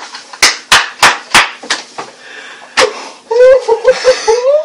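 Men laughing at a joke's punchline. A run of about six sharp smacks comes in the first three seconds, and a high, wavering laugh follows in the last second or so.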